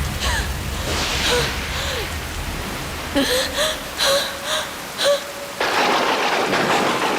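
Film soundtrack of steady rain with short gasps and whimpers. The rain grows denser and louder suddenly about five and a half seconds in.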